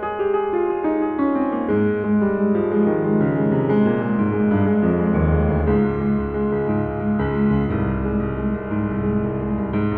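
Grand piano being played: a repeated note pulses evenly about four times a second under a melody, with deeper bass notes joining about two seconds in.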